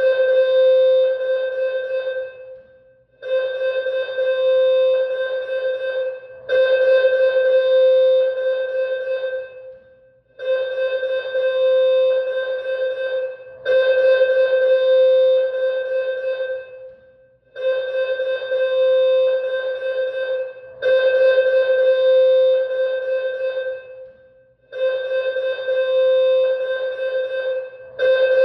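School alarm sounding on a warning loop: a steady, buzzy electronic tone of fixed pitch in repeated blasts of about three seconds, broken by a short silence roughly every seven seconds.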